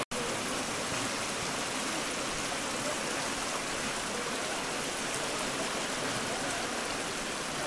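Steady rushing of river water, a constant even wash of sound.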